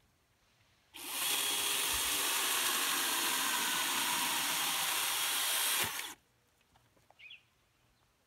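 DeWalt battery-powered chainsaw running at full speed, cutting into a log. It runs steadily for about five seconds and then stops abruptly.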